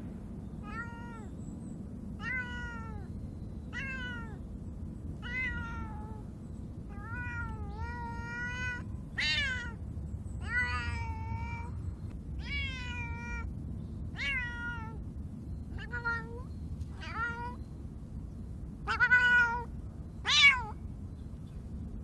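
Calico cat meowing over and over, about fifteen meows each rising then falling in pitch, spaced roughly a second and a half apart, with the last two the loudest. The cat is calling from inside a hollow log for her owner, who has pretended to leave.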